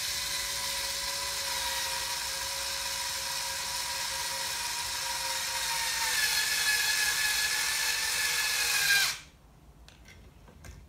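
Cordless drill-driver running steadily as it drives a bolt into a 3D-printed printhead mount. About six seconds in its pitch drops slightly and it gets louder, then it stops about nine seconds in, followed by a few faint clicks.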